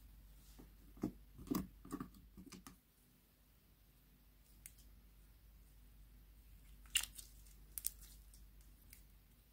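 Slime being squeezed and stretched by hand: a short run of soft, wet squishes in the first few seconds, then a lull, then a few sharp clicks near the end.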